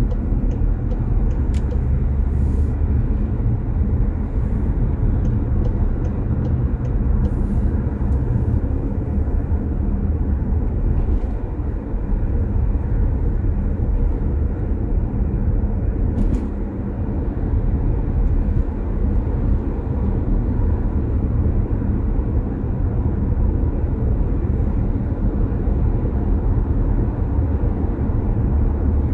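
Car driving along a road: steady low road and engine rumble.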